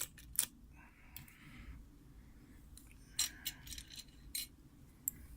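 Lock pick and tension wrench working the pins of a round-body padlock: scattered small metallic clicks with a brief scrape about a second in, and a cluster of clicks around three to four seconds in.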